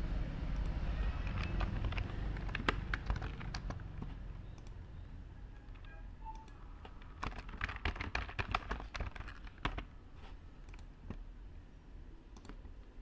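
Typing on a computer keyboard: two runs of quick key clicks, over a low background rumble that fades after the first few seconds.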